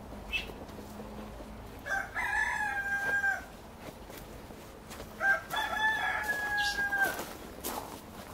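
A rooster crowing twice, each crow a short opening note followed by one long held note that drops off at the end.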